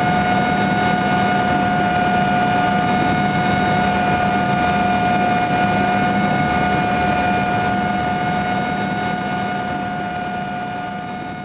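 Turbine aircraft in flight, heard from inside the cabin: a steady engine drone with a high, steady whine, fading out over the last few seconds.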